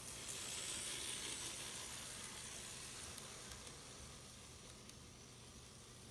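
N gauge model train running past close by, a hiss of motor and wheels that swells about a second in and fades slowly as it moves away, with a few faint ticks.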